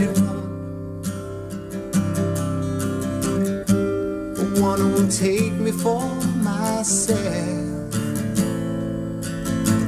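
Acoustic guitar strummed in a steady rhythm while a man sings a line over it.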